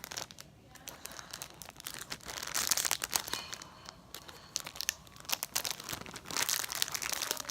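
Crinkling and rustling of a toy's packaging bag as it is handled and pulled at in an attempt to open it, in uneven clusters with the loudest stretches about two and a half seconds in and near the end.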